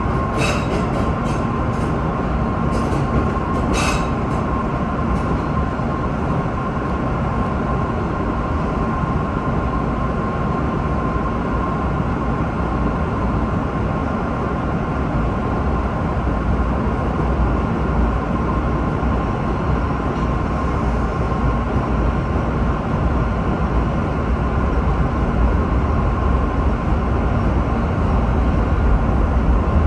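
MBTA Red Line subway car running at speed, heard from inside the car: a steady rumble of wheels on rail. There are a few sharp clicks in the first four seconds, and a thin steady whine fades out about halfway through. The rumble grows a little louder near the end.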